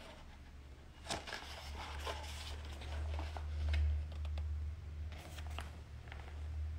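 Large pages of a photobook being handled and turned, with soft paper rustles and small clicks. A low rumble underneath swells to its loudest about four seconds in.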